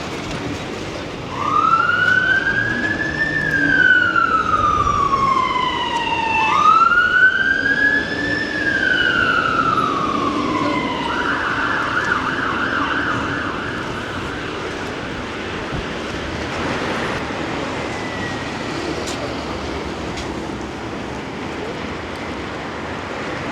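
Emergency vehicle siren on a passing vehicle: a slow wail that rises and falls twice, then switches to a rapid yelp for a few seconds before fading away.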